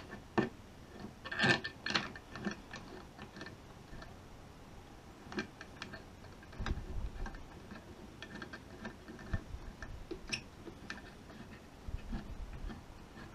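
Irregular plastic clicks and light knocks as the resin vat of an Anycubic Photon Mono 4 Ultra resin printer is handled and seated on the printer. The clicks are thickest in the first couple of seconds, with a few dull low thumps later.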